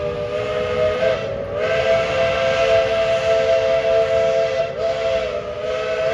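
E.T.W.N.C. #12's 5-inch Crosby three-chime steam whistle sounding one long, held blast, a three-note chord over a steam hiss. About a second in the chord slides slightly higher and louder as the whistle opens wider, and it falters briefly near the end.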